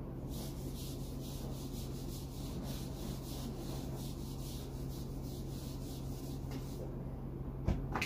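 Whiteboard eraser rubbing back and forth over a whiteboard, wiping off marker writing in quick scraping strokes, about three a second. The strokes stop near the end, followed by a single sharp knock.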